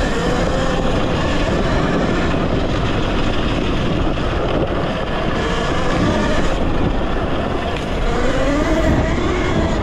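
Talaria Sting electric dirt bike riding in power mode 2: the motor's whine rises and falls with speed over a steady rushing noise.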